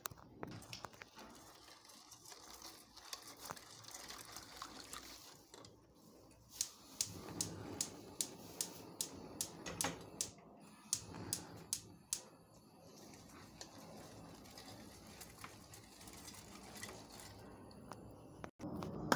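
Gas hob's spark igniter clicking, about two to three sharp clicks a second for some six seconds, starting about a third of the way in, while a steel saucepan is set on the burner. Soft handling and stirring noise of the pot before and after the clicking.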